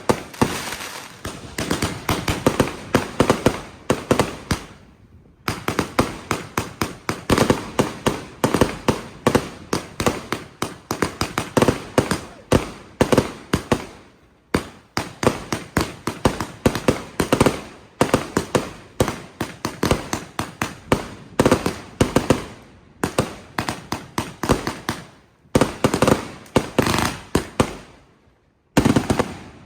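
Fireworks going off in rapid volleys of sharp bangs, several a second, with a few brief pauses between volleys.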